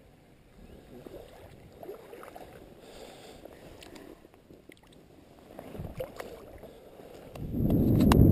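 Soft water sloshing and light splashes as a brown trout is lowered into shallow creek water and released by hand. Near the end a much louder low rumble starts.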